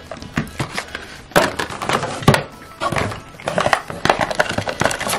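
Paper and cardboard packaging rustling and crinkling in irregular bursts as a box is unpacked by hand.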